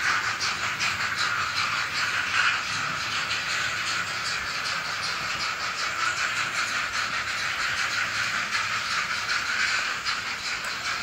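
Sound decoder of an N-scale model steam locomotive, Arnold class 41, playing quick, even steam chuffs with hiss through its small speaker as it runs, along with the train's running noise on the track.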